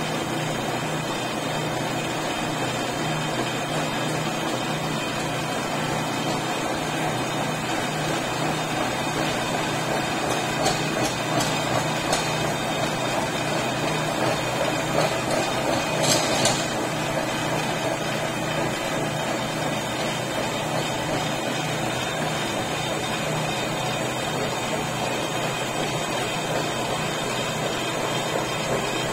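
Metal lathe running steadily with a low mechanical hum as its carriage feeds along the reground bed. A few brief light clicks come about halfway through.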